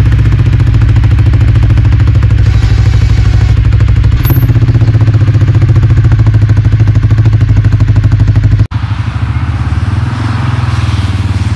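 CFMOTO CForce 450L ATV's single-cylinder engine running steadily at low speed while pushing snow with its front plow blade. A little under three-quarters of the way through, the sound cuts abruptly to a quieter, thinner engine sound.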